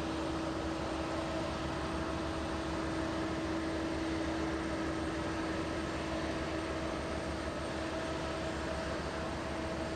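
Steady drone of aircraft engine noise across the airfield ramp: an even rush with a constant hum that neither rises nor falls.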